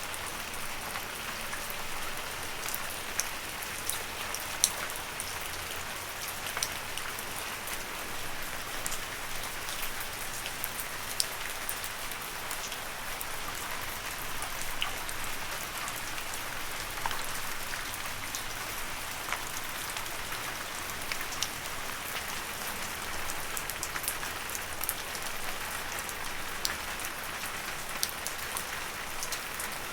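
Steady rain falling on leaves, an even hiss dotted with many sharp individual drop hits close to the microphone.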